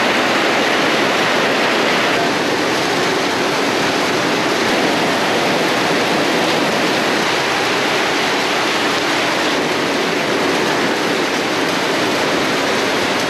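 Heavy rain falling steadily, a dense, even downpour with no let-up.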